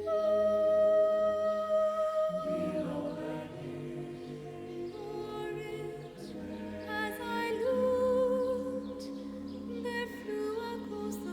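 Music with singing: a long held note over a steady low drone, then a melody that moves through shorter notes from about two seconds in.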